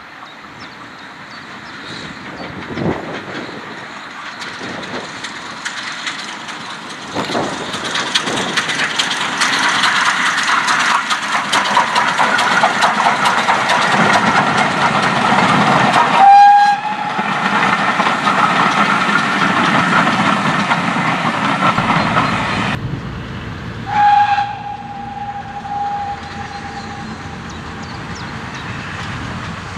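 Steam locomotive and its coaches passing, the running noise and rail clatter swelling as the train approaches, with a short steam whistle blast about 16 seconds in, the loudest sound. After an abrupt change the train is fainter, and a second steam whistle blast of about two seconds comes near 24 seconds.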